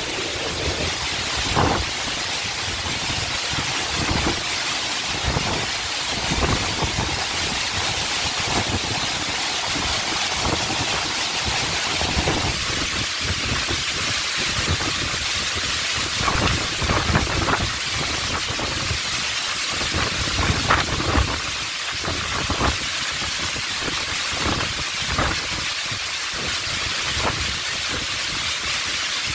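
Heavy monsoon rain pouring down in a strong gusty wind: a steady dense hiss, with irregular low rumbles from the gusts.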